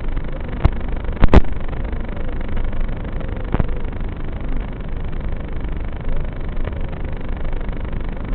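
FPV quadcopter in fast flight: a steady rush of wind noise with a faint motor whine that wavers up and down in pitch. Two sharp knocks come a little over half a second and a little over a second in, the second the loudest sound.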